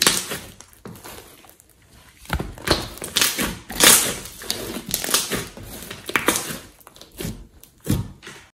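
A large mass of glossy slime being squeezed, kneaded and poked with fingers, giving irregular wet squishes and sharp pops.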